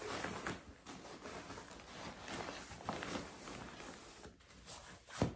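Nylon backpack and stuff sacks rustling and scraping as gear is pushed and packed into the pack, with small knocks throughout and one sharp thump just before the end.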